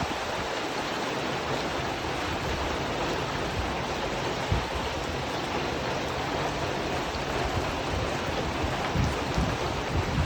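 Steady heavy rain drumming on a tin roof, an even hiss of drops. A few short low thumps break through, one about halfway and a couple near the end.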